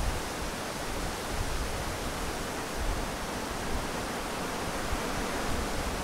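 Strong summer wind rushing through the leaves of willow trees, a steady dense rustle with a low gusty rumble that swells briefly now and then.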